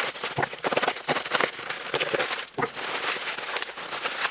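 A parcel being opened with a dull knife, its packaging crackling and crinkling in quick, irregular snaps.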